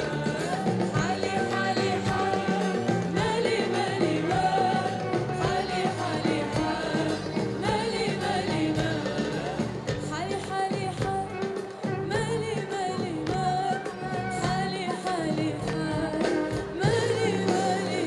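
A woman singing an Arabic song live into a microphone, with held notes that waver in vibrato, over a live band with bass guitar and drums, heard through a PA.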